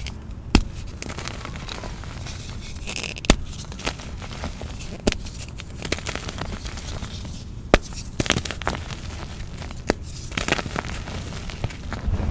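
Hands snapping and crumbling a block of gym chalk over a bowl of baby powder and cornstarch. There are sharp, crisp snaps about every two to three seconds, with softer crunching and crackling between them, and the powder is squeezed near the end.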